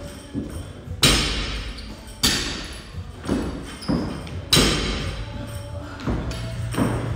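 A series of dull thumps, roughly one a second, each sharp at the start and fading out briefly.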